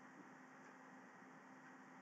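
Near silence: a faint, steady background hiss (room tone) with a faint hum.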